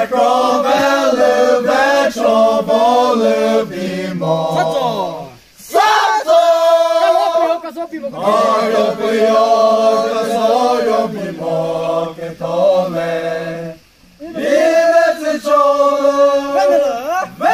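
A group of men singing together without instruments, in long held phrases, with two short breaks between phrases.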